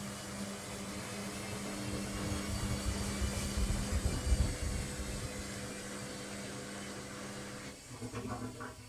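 Washing machine on its spin cycle: a steady motor hum with the drum's rumble, swelling about four seconds in. The hum cuts off near the end, followed by a few brief irregular sounds as the spin winds down.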